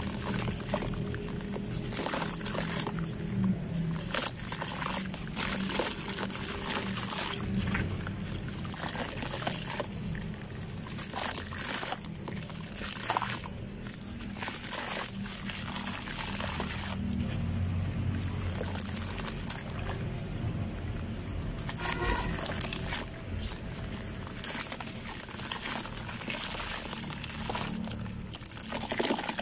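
Handfuls of wet sand crumbling and dropping into a bucket of muddy water, with splashing and squelching as hands knead the sludge. The crunchy crumbles come unevenly.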